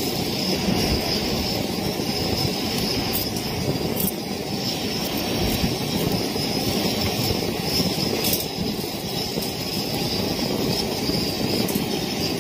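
Steady rumble of wind and sea surf with no let-up, and a few faint clicks.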